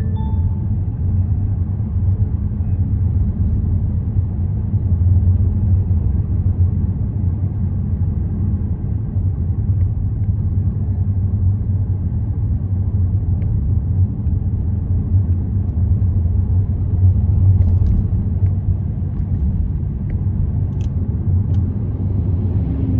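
A car driving on city roads: a steady low rumble of the engine and tyres on the road.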